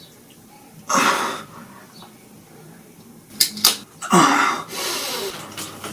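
Loud, breathy bursts of a person's voice: a short sharp one about a second in, a few quick clicks, then a longer breathy stretch with some wavering pitch.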